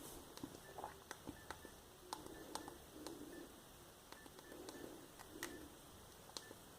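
Faint, irregular clicks of a clamshell mobile phone's keypad buttons being pressed, a few brief beeps among them, over a faint low murmur.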